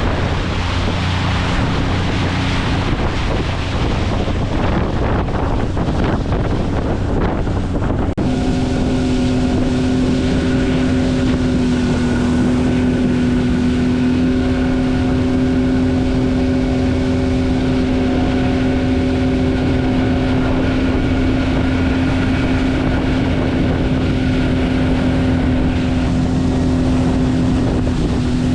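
Outboard motor of a small fishing boat running at a steady speed under way, with wind buffeting the microphone and water rushing past the hull. About eight seconds in the sound changes abruptly to a steady, even engine hum.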